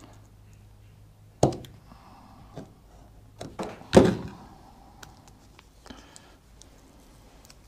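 Handling knocks from hand work on a cable connector and tools on a workbench: a sharp thump about a second and a half in, a few lighter knocks, then the loudest thump about four seconds in, over a faint steady low hum.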